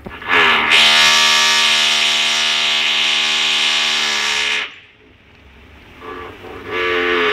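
A loud, steady droning hum with many overtones holds for about four seconds and then stops. It starts again near the end, slightly higher in pitch and wavering.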